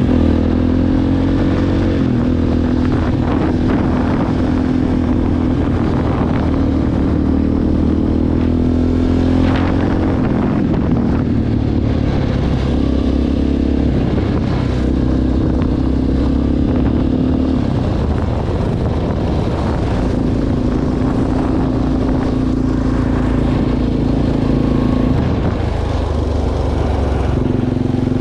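All-terrain vehicle engine running continuously under way, its note dipping and picking up again a few times, over rumbling and rattling from the ride.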